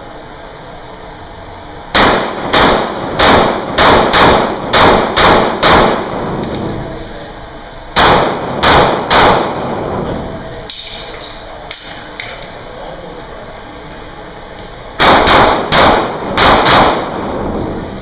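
Semi-automatic pistol fired in rapid strings at an indoor range, each shot echoing off the concrete walls. There are about eight quick shots, then three more after a short pause, then about five near the end.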